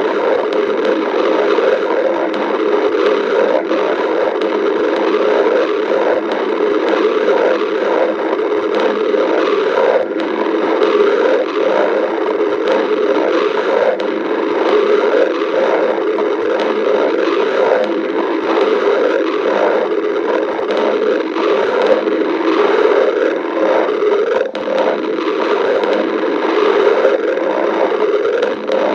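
Human stomach growling: a continuous gurgling with fast, irregular crackles, steady in loudness.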